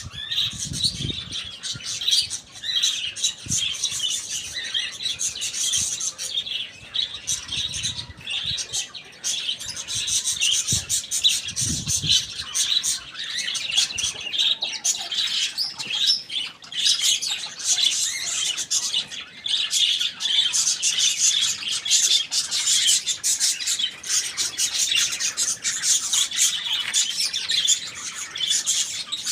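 Many birds chirping and squawking together in a continuous, dense chatter, with no pause.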